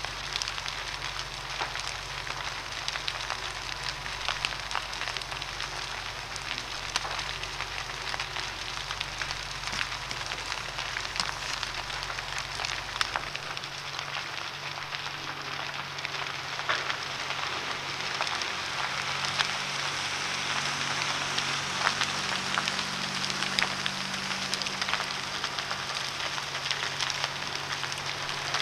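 Large wooden building burning fully involved: dense crackling and popping over a steady hiss. A low steady hum runs underneath and changes about halfway through.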